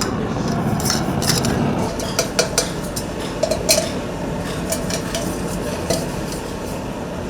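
Copper tinning work: irregular light metallic clinks and taps on copper ware, some ringing briefly, over a steady rushing noise.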